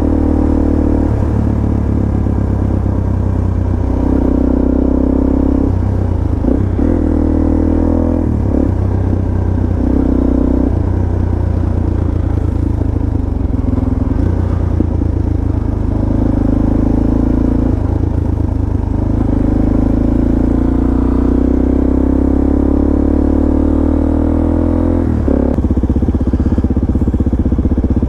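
Supermoto motorcycle being ridden, its engine note rising and falling several times with throttle and gear changes. There is a long steady climb in pitch in the second half and a sudden drop near the end.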